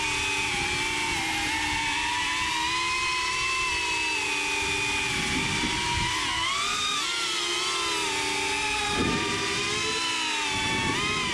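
FPV quadcopter drone's electric motors and propellers whining, the pitch bending up and down with throttle changes, most sharply about six to seven seconds in and again near the end.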